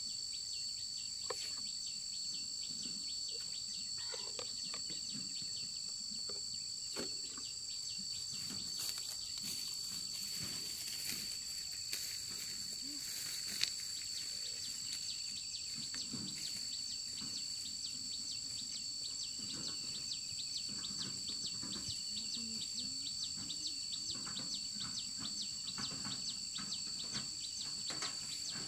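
Insects droning steadily at a high pitch, with faint bird chirps and a few soft clicks.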